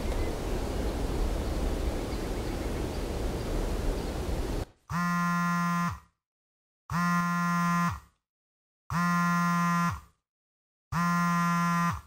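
A steady hiss of background noise, then from about five seconds in a Samsung smartphone's incoming-call alert: a steady buzzing tone about a second long, repeating every two seconds, four times.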